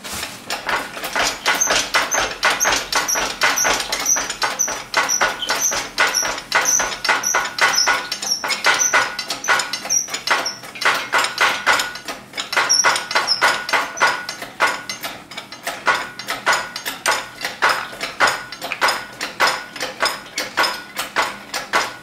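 Hydraulic engine crane being pumped by hand to raise its boom: a fast, even run of metallic clicks and squeaks, several a second, with a high metallic ring on each stroke.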